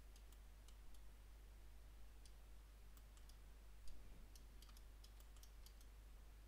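Near silence with faint, scattered computer mouse clicks, and one slightly louder click about four seconds in.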